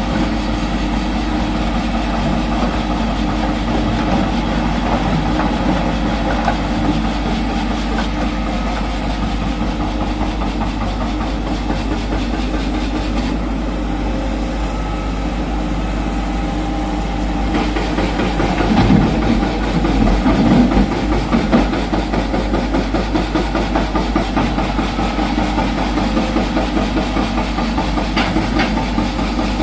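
Hitachi Zaxis 210F excavator's diesel engine running steadily, growing louder and rougher for a few seconds about two thirds of the way through.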